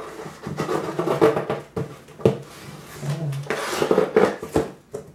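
Cardboard box being handled and its top lifted: rustling, scraping and knocking of cardboard, with a longer scrape just under four seconds in.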